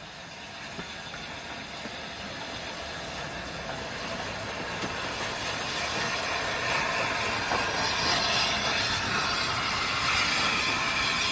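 Train of A1 Pacific steam locomotive No. 60163 Tornado and Class 31 diesel No. 31601 approaching and passing close by, its wheels running on the rails with a hiss, getting steadily louder and brightest in the second half as the locomotive goes past.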